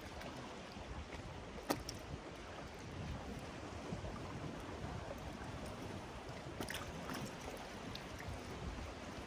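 Steady wash of sea water with wind noise rumbling on the microphone. A sharp click comes a little under two seconds in, and fainter ticks near seven seconds.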